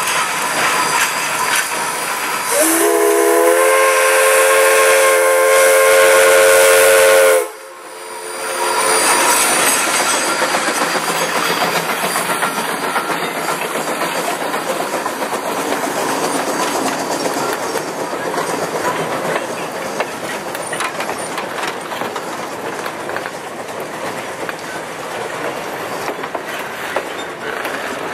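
Climax geared steam locomotive's whistle sounding a chord of several tones, blown once for about four and a half seconds and cut off sharply. The locomotive and its train of passenger cars then roll past, with steady rumbling and wheels clicking over the rail joints.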